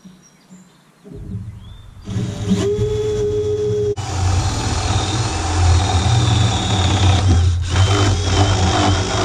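DeWalt cordless drill with a spade bit boring a hole through a pressure-treated 2x8 board. The motor starts about a second in, picks up speed and runs steadily under load, with a brief stop about four seconds in.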